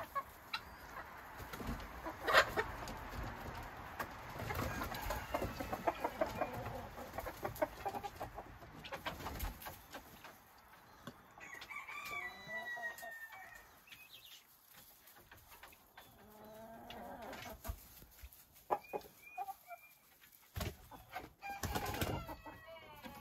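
Chickens and guinea fowl clucking and calling in scattered bursts, with a longer call about twelve seconds in and occasional knocks.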